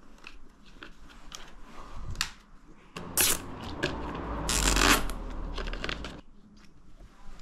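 Plastic milk-crate parts being handled and fitted by hand: scattered clicks and light knocks, then a rattling, scraping stretch of about three seconds starting about three seconds in.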